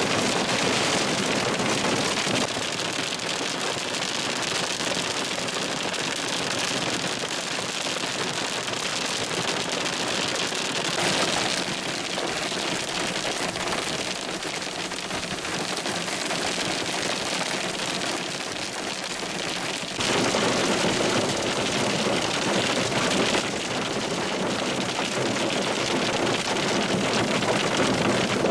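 Hail and heavy rain pelting down, a dense, steady clatter of countless stones and drops striking. Its loudness steps up or down a few times.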